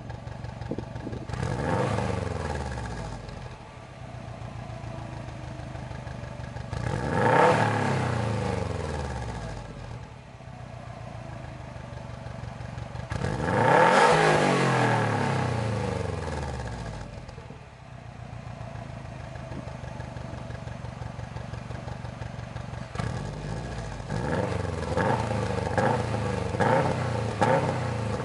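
Subaru WRX STI turbocharged flat-four heard at the tailpipe of a Fujitsubo Authorize RM single-tip cat-back exhaust, revved while standing still. A short rev comes first, then two longer revs that climb and fall back to idle, with a steady idle between them, then a rapid run of quick throttle blips near the end.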